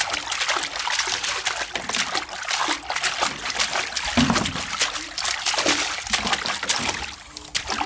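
Bath water splashing and dribbling in a small tub as toddlers slap and scoop at it with their hands, a quick, irregular patter of splashes.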